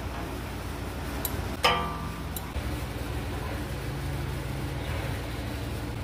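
One sharp metallic clink with a short ring, a little under two seconds in, from a hand tool knocking against metal in an engine bay, with a couple of faint ticks. A steady low hum runs underneath.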